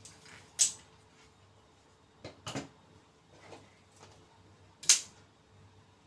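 Push-button folding knives being handled: a few sharp metallic clicks and clacks, loud just after the start and loudest near the end, with a quicker cluster of clacks in the middle.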